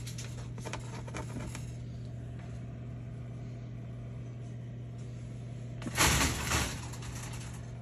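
A steady low mechanical hum, with a few faint clicks near the start and a brief loud rustle about six seconds in.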